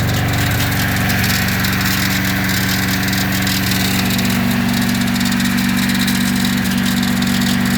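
Moskvich 407's four-cylinder petrol engine idling steadily, cold after standing all winter, running on the choke just after a first-try start.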